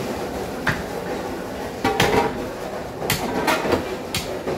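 Butcher's cleaver chopping goat meat and bone on a wooden log block: several sharp strikes, unevenly spaced.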